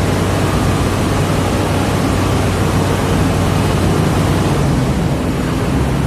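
A heavy engine running steadily under loud rushing noise. Its low hum shifts in pitch about five seconds in.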